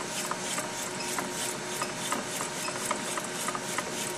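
Anytron Any001 digital colour laser label press running while printing, the label web feeding through with a steady mechanical whir and a soft tick about two to three times a second.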